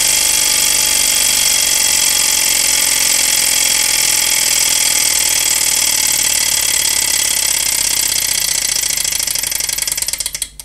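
Small alcohol-fired Stirling engine running fast with a steady mechanical rattle and whine from its pistons, flywheel and generator. The sound stops suddenly near the end.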